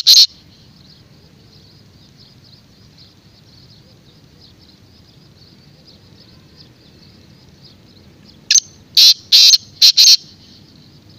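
Black francolin calling: a loud phrase of five short, sharp notes about two seconds long near the end, after the last note of the previous call right at the start. Faint high chirping carries on in the background between calls.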